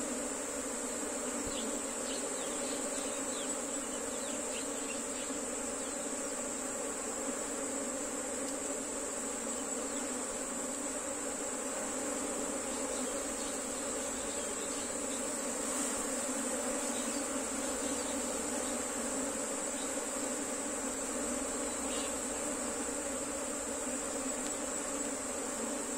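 A colony of honey bees buzzing steadily on an opened hive, a dense even hum. A constant high-pitched hiss sits above it.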